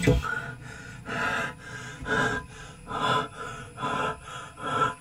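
A man gasping for air in heavy open-mouthed breaths, about one a second, after a thump right at the start. He puts the laboured breathing down to low oxygen in the sealed tank.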